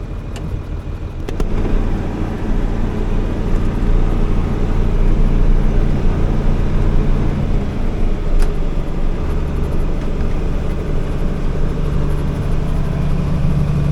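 Semi grain truck's diesel engine idling steadily, heard from inside the cab; it grows louder about a second and a half in.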